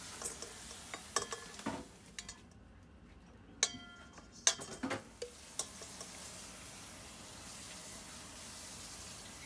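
A metal measuring spoon clinking and scraping against a stainless steel mixing bowl as date sugar is scooped in, with one short metallic ring a few seconds in. The clinks stop about six seconds in, leaving a faint steady hiss.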